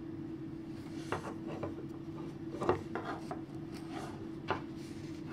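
Wooden knitting needles scraping and tapping against each other and the super chunky yarn as knit stitches are worked: a handful of short, soft scrapes and taps over a low steady hum.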